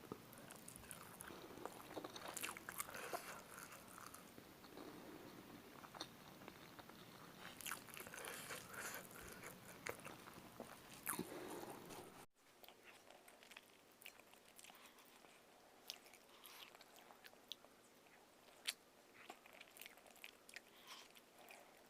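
Close-miked eating of spicy chicken feet: biting and chewing with small crunches and wet mouth clicks. The sound drops quieter about halfway through.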